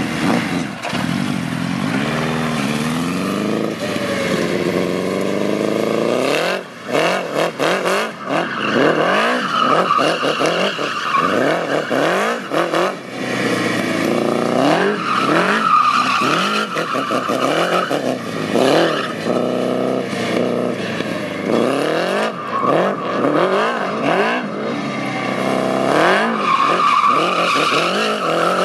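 Go-kart with a motorcycle engine revving hard again and again, its pitch climbing and dropping about once a second as it accelerates and drifts. Tyres squeal on the tarmac throughout.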